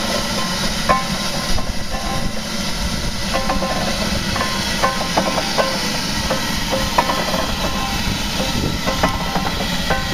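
Victorian steam ploughing engine running, with a steady hiss and low rumble and short sharp sounds scattered through it.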